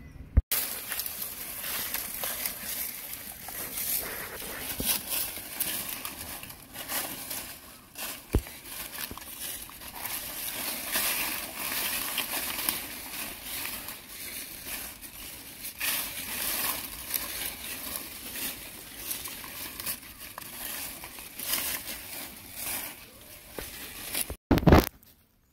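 Dry fallen leaves crackling and rustling in many small, dense crunches as macaques rummage through them. A louder knock comes near the end.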